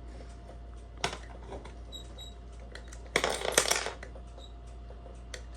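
Metal-on-metal clicks from homemade lever picks working inside a Wellington 5-lever night latch: a sharp click about a second in, then a short burst of metallic clatter a little past three seconds.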